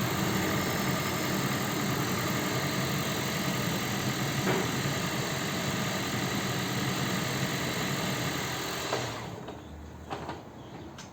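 Second-generation Toyota Prius hybrid's 1.5-litre four-cylinder petrol engine starting and running steadily, then cutting off about nine seconds in. It now runs evenly without the rattling of a misfire, after the spark plugs were dealt with.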